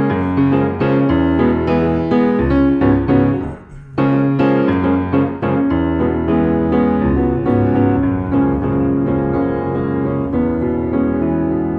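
Grand piano played in an improvised jazz piece, with dense chords and runs. The sound dies away briefly about three and a half seconds in, then a loud chord comes in and the playing carries on.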